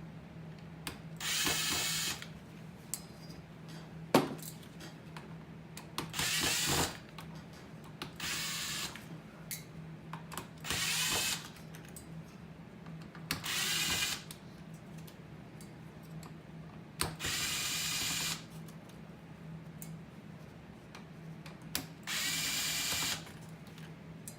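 Small electric screwdriver running in seven short bursts of about a second each, backing out the Phillips screws of a car navigation unit. Light clicks and taps fall between the bursts, over a faint steady hum.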